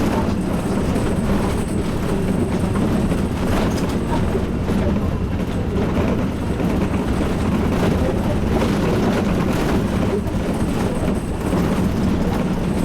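Steady low rumble of a coach's engine and tyres heard from inside the passenger cabin, with irregular rattles and jolts as it drives over a rough, unfinished road surface.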